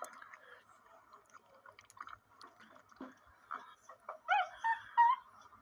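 Capuchin monkey eating a mushy banana: faint small clicks and smacks, then about four seconds in a few short, high-pitched squeaky calls that bend up and down in pitch.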